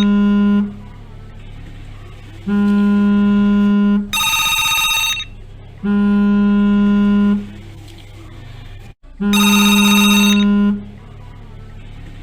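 A phone vibrating in repeated buzzes of about a second and a half, four of them, some overlaid with an electronic telephone ring, and a steady low hum between the bursts.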